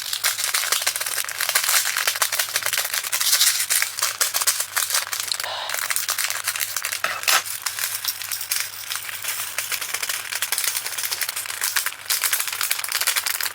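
Small resin diamond-painting drills pouring and rattling into a storage container, a dense continuous patter of tiny plastic clicks.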